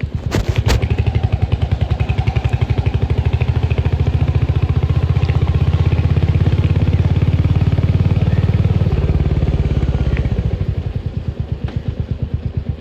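Royal Enfield Hunter 350's single-cylinder engine, its exhaust thumping steadily under way, then easing off and going uneven about ten seconds in as the throttle closes. There are two sharp clicks about half a second in.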